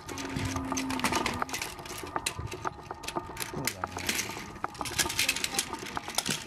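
Small plastic clicks and rattles of a toy train's parts being handled and fitted together.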